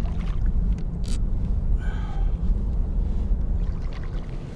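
Wind buffeting the microphone in a winter snowstorm: a steady low rumble, with a brief sharper noise about a second in and a short higher sound around two seconds.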